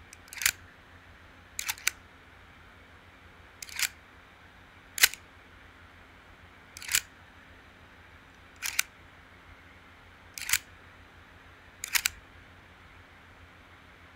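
A series of eight short, sharp clicks, roughly every one and a half to two seconds, some of them doubled.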